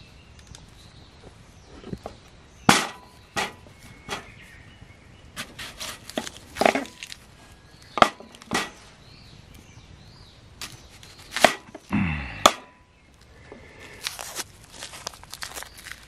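A kitchen knife knocking on a cutting board in scattered, irregular strokes as food is cut up, with one heavier knock about twelve seconds in.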